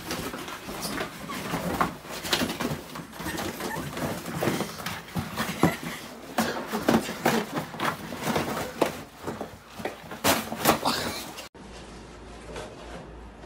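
A dog and a person play-wrestling on the floor: a busy, irregular run of short scuffling and animal noises, loudest near the end. It cuts off abruptly about eleven and a half seconds in, leaving a quiet steady room hum.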